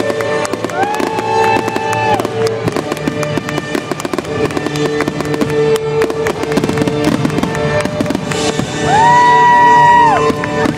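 Fireworks popping and crackling over the show's music soundtrack played loud over loudspeakers, with long held notes in the music. A louder stretch comes about nine seconds in.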